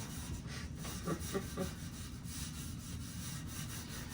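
Quick, repeated scrubbing strokes rubbing at an old, pitted bicycle rim to clean it, heard faintly over a low steady hum.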